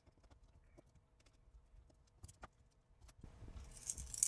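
Faint small clicks of screws being backed out of a circuit board assembly. From about three seconds in come louder scraping and clattering as a thin metal retaining ring is lifted off and handled.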